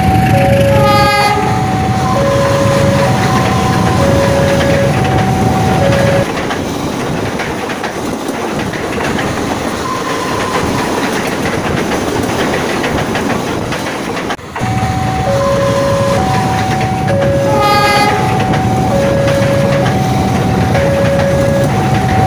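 Level-crossing warning alarm sounding its two alternating notes over the low rumble of a passing KAI diesel locomotive, with a brief higher tone about a second in. Passenger coaches then roll by with steady wheel-on-rail noise that covers the alarm for several seconds, before the alternating alarm comes back clearly.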